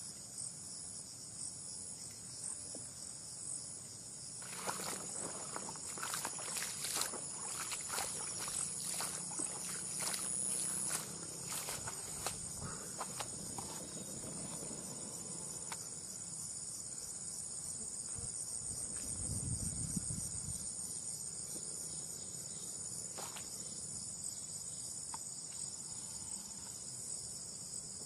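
A steady, high-pitched chorus of insects. A few seconds in, a run of rustling and sharp clicks lasts several seconds, and a brief low rumble comes about two-thirds of the way through.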